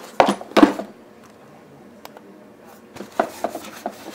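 Handling noise from a Graco Extend2Fit car seat: two sharp knocks of the plastic shell and fabric cover being moved early on, then a few small clicks and rustles about three seconds in as the seat pad is lifted.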